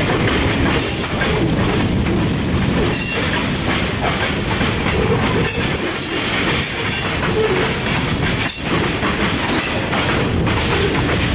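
Freight train of tank cars rolling past close by: a steady, loud noise of steel wheels on rail with clickety-clack over rail joints and short high wheel squeals.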